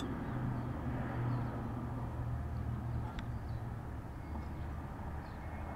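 Steady low outdoor rumble, with one faint click about three seconds in.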